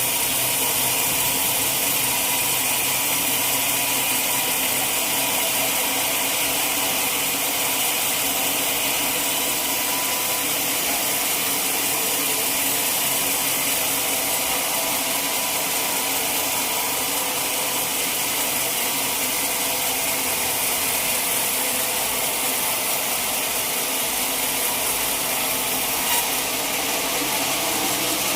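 A sawmill saw running steadily as it cuts through a log, a continuous high-pitched noise with a faint hum, and one small knock near the end.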